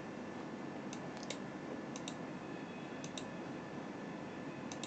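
Computer mouse clicking: a few faint clicks, mostly in quick pairs, about a second apart, over a faint steady hiss.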